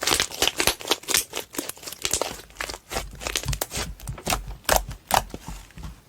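Slime being squished and pulled by hand, giving a rapid, irregular run of sharp clicks and pops.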